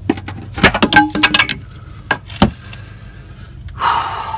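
Metal clinks and knocks from hands and tools working a serpentine belt back onto its pulleys and spring tensioner: a quick cluster about a second in, one sharp knock halfway, and a short rasping rush near the end.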